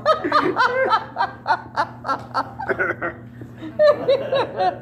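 A small group laughing together in quick, repeated bursts of chuckling.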